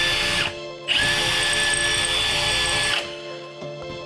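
Cordless drill boring into the car's steel floor pan from underneath, running in two steady whining bursts: the first stops about half a second in, the second runs from about one to three seconds in. The holes are stop holes drilled at the ends of a crack in the floor pan to keep it from spreading before it is welded.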